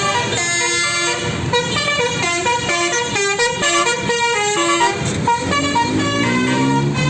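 Bus telolet horn of the Basuri type playing a fast melody of short stepped notes, with several rising sliding notes near the end.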